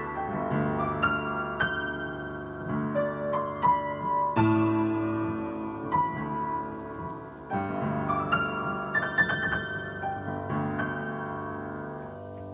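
Piano playing a slow, gentle passage of single notes over sustained chords, each note struck and left ringing, growing quieter near the end.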